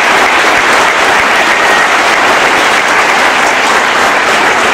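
Audience applauding, a dense and steady clapping that holds level without a break.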